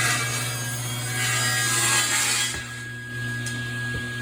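Table saw running with its blade ripping a strip off a wooden board. The cutting noise stops about two and a half seconds in as the board clears the blade, leaving the motor and blade spinning free.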